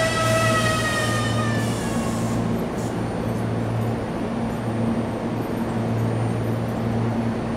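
Tobu Tojo Line electric commuter train standing at the platform, its onboard equipment giving a steady low hum. A high whine of several tones drifts slightly down in pitch and fades out within the first two seconds.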